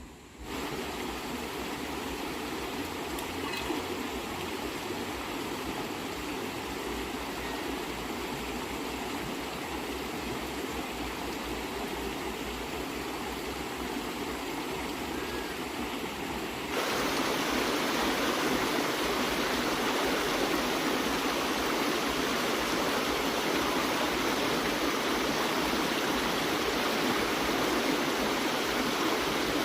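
A steady rushing, hissing noise with no distinct tones, which jumps abruptly louder about seventeen seconds in.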